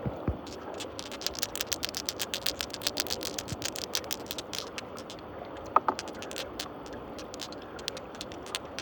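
Glass marbles clicking and clinking against each other as they swirl in muddy water, many irregular clicks a second over a steady water noise. One louder clink, a little under six seconds in, rings briefly.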